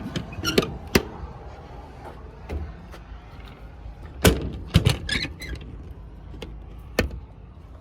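Metal compartment doors and latches on a truck's service body: several separate sharp clunks and clicks, spread across a few seconds.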